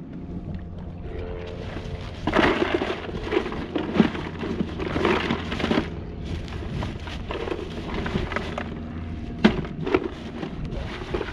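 Irregular knocking, rattling and rustling of gear being handled on a small fishing boat's deck, busiest in the first half, with a sharp knock about nine and a half seconds in.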